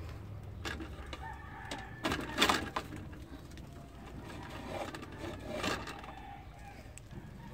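Purple yam tubers knocking and scraping against the metal pan of a dial scale as they are handled and lifted off, with the loudest clatter about two and a half seconds in and another near the end. A rooster crows meanwhile.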